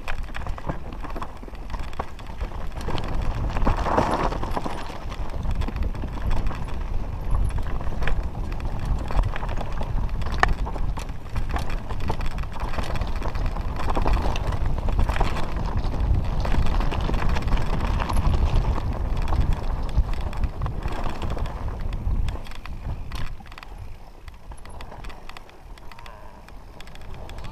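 Mountain bike clattering and rattling as it descends a rocky trail, its tyres knocking over loose stones in quick, uneven succession. The clatter eases and grows quieter near the end as the trail turns to grass.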